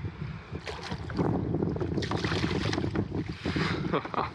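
Water splashing and sloshing against a kayak as a large hooked sheepshead is brought to the side, with wind buffeting the microphone.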